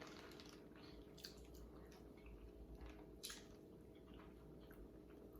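Near silence with faint eating sounds: soft squishing and chewing of king crab with sauce, and a couple of small clicks, over a steady low hum.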